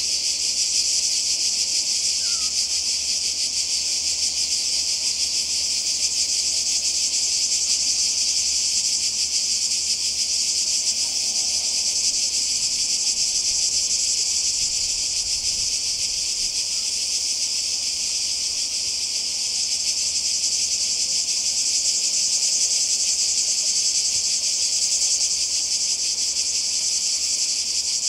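A dense chorus of cicadas, a steady high-pitched buzz that keeps on without breaks.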